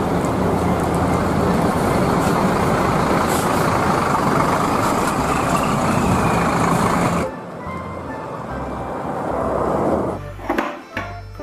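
Large intercity coach bus engine running loudly as the bus moves past close by, with road noise. The sound drops suddenly about seven seconds in, and music with plucked guitar starts near the end.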